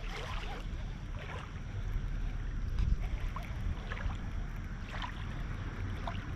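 Wind rumbling on the microphone over water lapping at the bank, with a few faint short splashy sounds every second or so.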